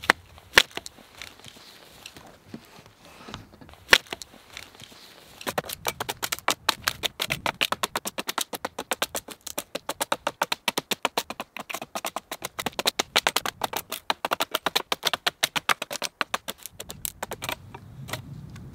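A few sharp wooden knocks, then a long run of rapid crackling and snapping as a dry dead-fall pole is split lengthwise and its wood fibres tear apart.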